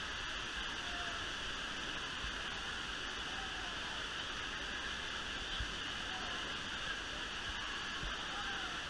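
Artificial waves in a wave pool breaking and washing across the shallow water in a steady rush, with faint distant calls and voices of bathers. A couple of brief low thumps are heard partway through.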